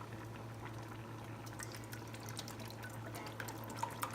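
Chicken broth being poured into a pan of Alfredo sauce, over a steady low hum, with small splashes and clicks in the second half.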